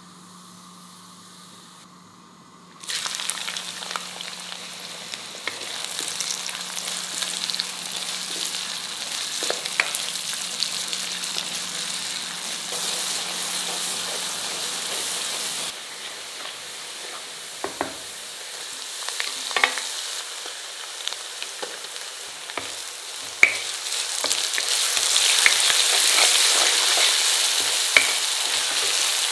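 Hot oil in a stone kadai hisses quietly, then about three seconds in chopped onions and green chillies go in and it jumps to a loud, steady sizzle. A spatula stirs them, with scattered scraping clicks against the pan. The sizzle grows louder near the end as the onions fry golden brown.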